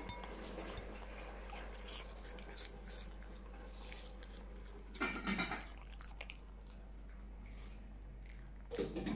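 A dog chewing and crunching pieces of apple, with louder crunching about five seconds in and again near the end.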